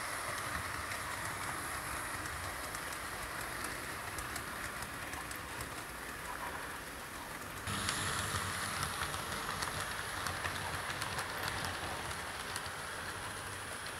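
Bachmann 00 gauge model of an L&YR Class 5 2-4-2 tank engine hauling coaches along model track. It makes a steady, quiet rolling hiss with many small clicks of the wheels over rail joints. The sound grows louder about eight seconds in.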